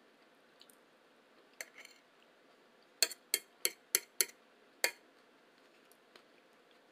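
Cutlery clicking against a plate: a quick run of about six sharp clicks around the middle, with a couple of fainter ones before it.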